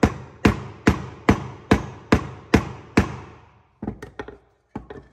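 Hammer blows on a wooden block, driving a new Ford Transit MK7 front wheel bearing onto its hub: eight even strikes at about two and a half a second. The strikes stop about three seconds in, followed by a few lighter knocks.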